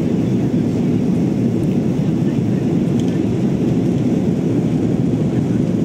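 Steady engine and airflow noise of an Airbus A330-300 airliner heard inside the passenger cabin during the climb after takeoff.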